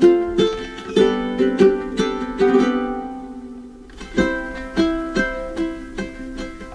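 Background music: a plucked string instrument picking out a melody of short, decaying notes, thinning out about halfway through before the picking resumes.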